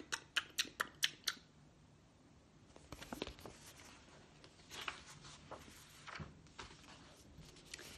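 A quick run of about eight short, soft clicks in the first second and a half, then faint rustling and handling of a picture book's paper pages, with a light knock about six seconds in.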